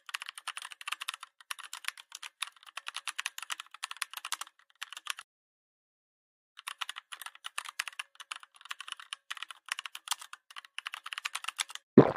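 Computer keyboard typing sound effect: rapid key clicks that pause for about a second and a half midway, then start again. A short, louder thump comes right at the end.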